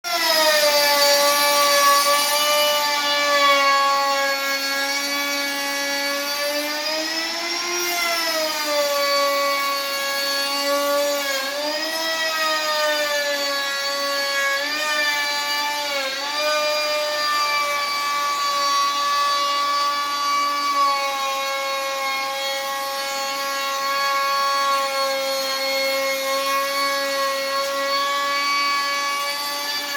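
Electric woodworking saw running with a steady whine. Its pitch sags and recovers several times in the first half, as it does when wood loads the blade, then holds steady.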